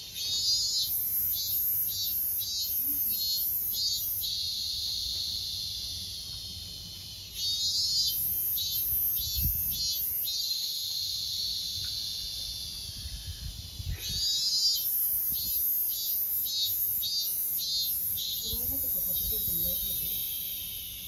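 Insect song in loud, high-pitched repeated phrases, three in all: each opens with a burst, pulses about twice a second for a few seconds, then settles into a steady buzz before the next phrase begins.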